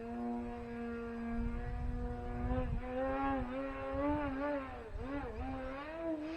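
RC airplane's SunnySky 3120 880kv brushless electric motor and 12x6 propeller buzzing overhead as a steady tone. The pitch holds level for about two and a half seconds, then wavers up and down for the rest of the time. Wind rumbles on the microphone underneath.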